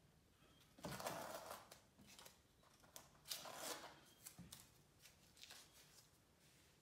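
Blue painter's tape being peeled off a canvas and handled: two short papery rustles about two seconds apart, with a few small clicks between.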